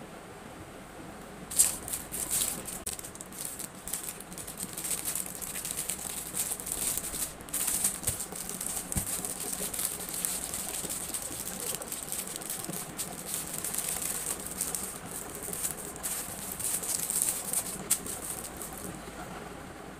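Packaging being handled: dense crinkly rustling with many small clicks, starting about a second and a half in and stopping shortly before the end.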